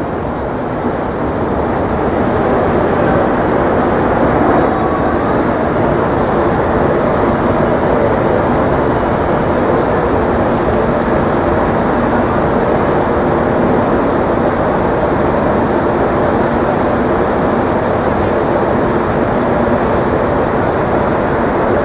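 Steady, loud rumble of heavy street traffic, with a low engine hum underneath. It builds over the first couple of seconds, then holds.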